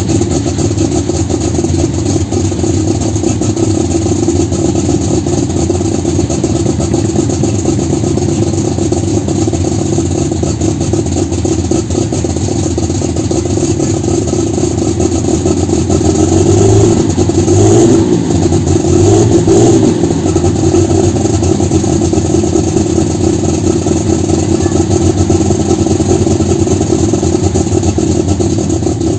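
Engine of a John Deere-bodied tractor-pulling tractor running steadily while standing, revved up and back down twice in quick succession about two-thirds of the way through.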